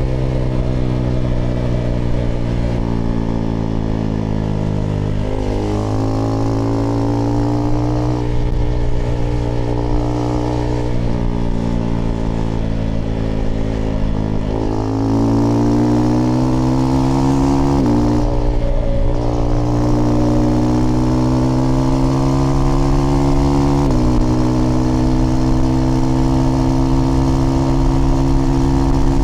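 Husqvarna Svartpilen 401's single-cylinder engine through an IxRace Mk.2 aftermarket exhaust with a modified dB killer, heard while riding. The engine note rises and falls, with sudden pitch changes at gear shifts about five times.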